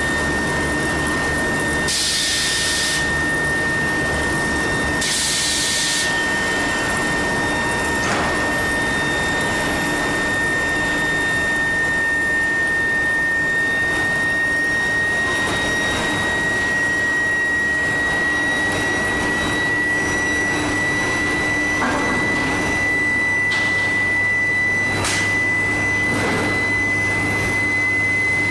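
Steady high-pitched whine of a medium-frequency induction heater, its pitch creeping slowly upward, over a background of machine noise and low hum. Two short hisses come about two and five seconds in.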